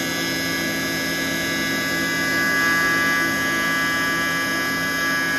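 CNC milling machine cutting a scooter rim under flood coolant: a steady machining whine made of many steady tones over a hiss of coolant spray, swelling slightly about halfway through.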